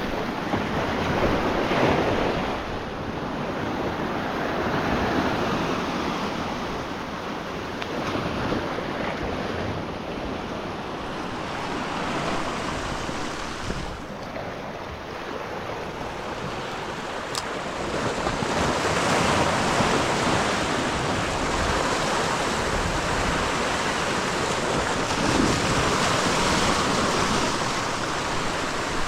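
Sea waves breaking and washing against shoreline rocks, the surge rising and falling every few seconds, with wind buffeting the microphone.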